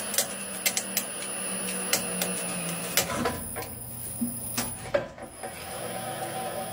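Twin-shaft shredder running with a steady hum. Irregular sharp clicks and knocks come as a black rubbery object tumbles on the turning cutters without being pulled in.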